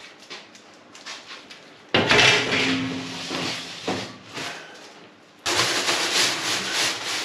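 Metal baking trays being handled and stacked, with two spells of clattering and scraping: one starting about two seconds in, another about five and a half seconds in.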